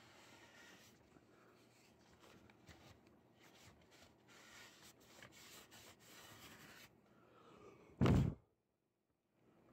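Faint rubbing and scraping handling noise with small clicks, then a single loud thump about eight seconds in that cuts off suddenly.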